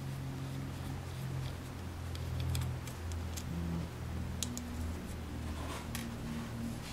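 A few faint scattered clicks and light scrapes of a small precision screwdriver turning the screws that hold a hard drive's circuit board, over a steady low hum.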